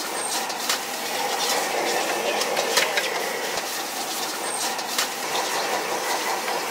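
Rice sizzling in a wok over a high-flame gas wok burner, a steady hiss, with a metal ladle scraping and clanking against the wok every second or so.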